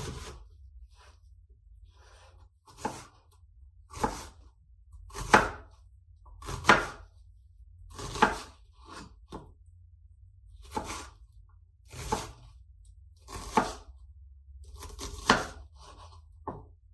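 Knife cutting through food on a board in slow, separate strokes, about a dozen, roughly one every second and a half.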